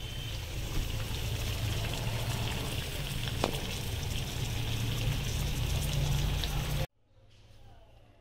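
Batter-coated green chillies (mirchi bajji) sizzling as they deep-fry in hot oil: a steady bubbling hiss with a low rumble beneath. It cuts off abruptly about seven seconds in.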